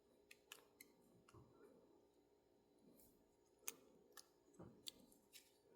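Faint, scattered small clicks and taps, about nine of them at irregular intervals, from tiny parts of a model locomotive being handled and fitted together, over a low steady room hum.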